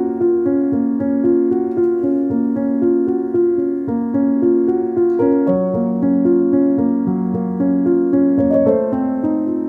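Background music: a piano playing a slow melody of held notes.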